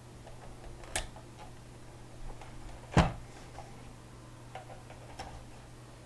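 An Ethernet cable's RJ-45 plug clicking into a router port: one sharp click about three seconds in, a lighter click about a second in, and faint handling taps, over a low steady hum.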